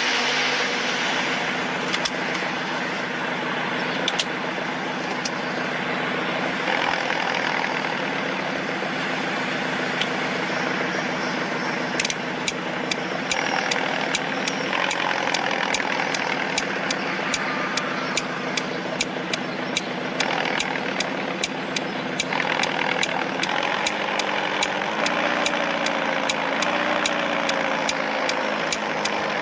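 Engine idling with a steady low rumble. From about halfway through, a regular ticking about three times a second runs on top, and near the end the pitch steps up slightly.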